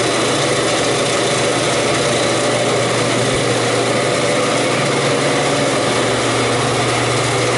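Walk-in cooler evaporator fans running: a steady rush of moving air with a low, even hum underneath.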